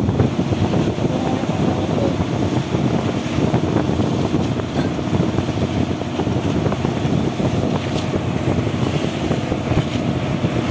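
A fishing boat's engine running steadily, with wind buffeting the microphone.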